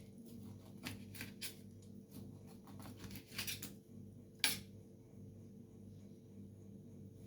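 Small scrapes and clicks of citrus fruit being peeled and trimmed of its white pith, with one sharper click about four and a half seconds in, over a steady low hum.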